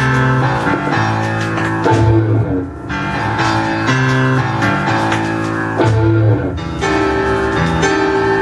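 Early-1970s hard/prog rock played from a vinyl LP on a turntable: keyboards and electric guitar over a low riff that repeats about every two seconds.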